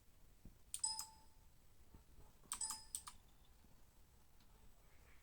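Keyboard keys clicking in two quick clusters of a few presses each, about a second in and again near three seconds, each cluster with a brief, faint metallic ring.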